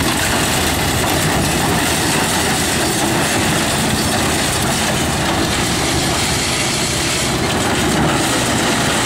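Agri World FM-2000.12 mobile hammer crusher running steadily under load, breaking stone, with crushed gravel pouring off its discharge conveyor onto the pile: a loud, unbroken, dense grinding noise.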